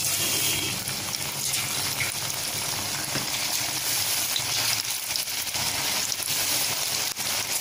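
Batter-coated bitter gourd slices deep frying in hot oil: a steady sizzle with occasional crackles as more slices are dropped in.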